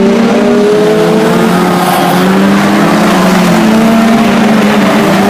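Several BriSCA Formula 2 stock car engines running hard around the oval, their overlapping engine notes drifting slowly up and down as the cars lap.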